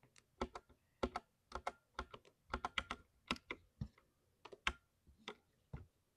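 Typing on a thocky mechanical keyboard: quick, uneven clusters of deep key clacks with short pauses between them.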